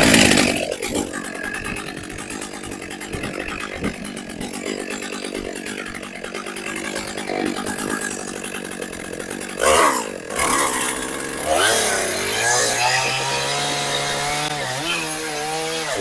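Stihl chainsaw starting and running, then revved and cutting into a large maple log from about 11 seconds in, its engine pitch dipping and recovering as the chain loads up in the wood.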